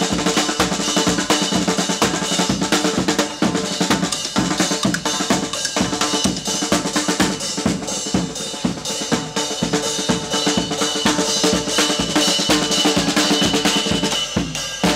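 Street band playing: a bass drum with a mounted cymbal and a snare drum beat a steady, busy rhythm under a saxophone playing held notes.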